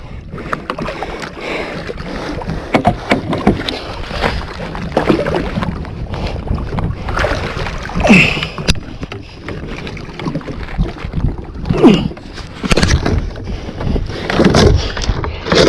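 Water splashing and irregular thumps as a big yellowfin tuna is gaffed alongside a kayak and hauled aboard, the fish thrashing at the surface and knocking against the hull, with wind on the microphone.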